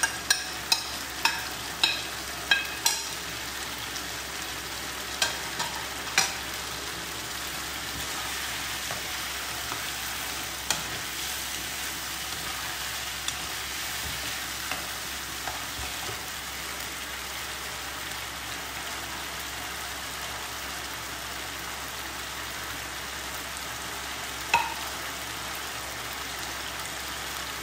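Mutton frying in spiced oil in a frying pan, a steady sizzle, with a spatula clicking against the serving plate as herbs are scraped in during the first few seconds, and a few knocks of the spatula stirring in the pan later.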